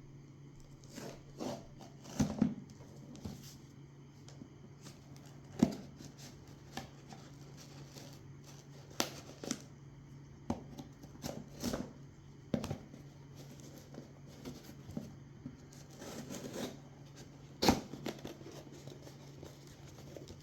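Hands opening a mailed package: irregular rustling, tearing and crinkling of packaging with scattered knocks and clicks, one sharp knock near the end, over a steady low hum.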